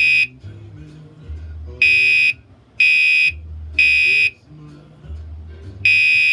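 Gentex Commander 3 fire alarm horn sounding in the temporal-three evacuation pattern: three short, loud, buzzy beeps about a second apart, a pause of about a second and a half, and a new round starting near the end.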